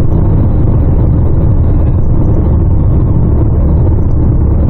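Steady drone of engine and road noise inside the cabin of a 2016 Nissan Qashqai 1.6 diesel climbing a hill at highway speed, loaded with three adults and the air-conditioning on. The sound is an even low rumble with no changes or gear shifts.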